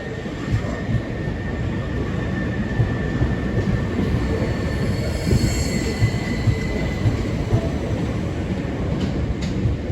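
Class 377 Electrostar electric multiple-unit train moving at the platform: a steady low rumble of wheels on rail with irregular knocks, and a faint high whine over it.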